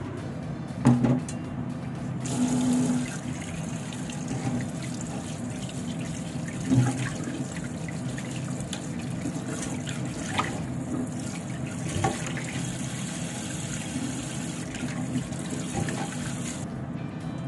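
Kitchen tap running into a bowl in a sink while hands rinse eggs, starting about two seconds in and stopping near the end. A few sharp knocks stand out, the loudest about a second in and near the middle.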